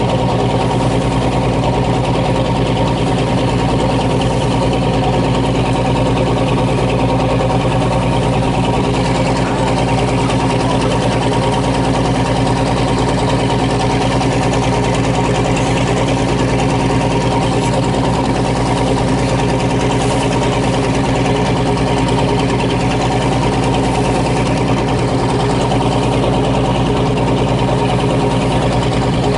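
Fishing boat's engine running steadily under way, a constant drone, with an even hiss of rushing water and wind over it.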